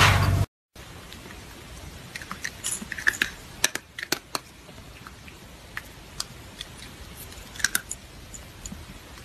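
Opens with half a second of loud rumbling noise that cuts off abruptly. Then, over a faint steady hiss, come scattered crisp clicks of dry cat kibble in a small ceramic bowl, bunched a few seconds in and again near the end.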